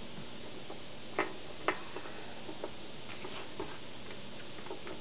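Small plastic clicks and taps of LEGO pieces being handled and set down on a wooden tabletop: two sharper clicks about a second in, then several fainter ticks, over a steady hiss.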